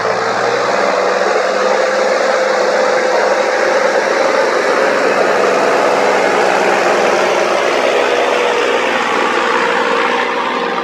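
Tractor diesel engine running steadily, with a continuous whine whose pitch sags slightly near the end.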